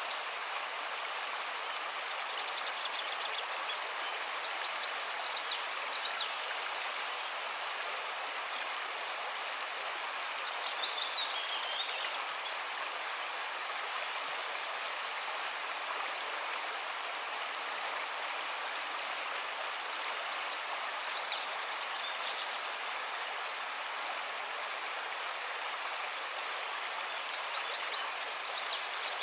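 Steady rush of a river running over stones, with many short high-pitched chirps scattered through it and one falling call about ten seconds in.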